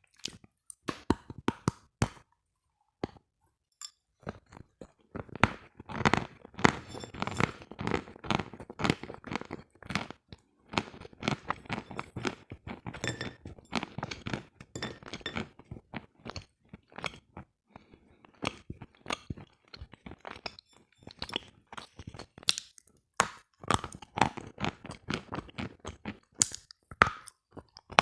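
Close-miked chewing and crunching of hard, brittle pieces, bite after bite in irregular clusters: a few sparse crunches, then a long run of dense crunching, easing off and picking up again near the end.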